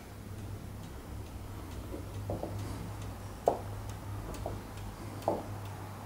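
Footsteps on a tiled floor, soft thuds about once a second, over a steady low hum.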